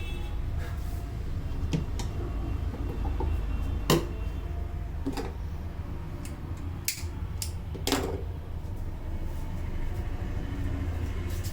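Hands working during a head massage: about half a dozen sharp slaps and cracks at irregular intervals, the loudest about four and eight seconds in, over a steady low rumble.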